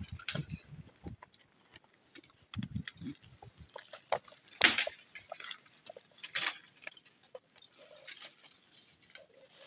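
Irregular crackling and rustling of dry leaves and twigs with a few low thuds, the sound of a small antelope carcass being set down and handled on dry ground. The loudest is a brief crunch a little under halfway through.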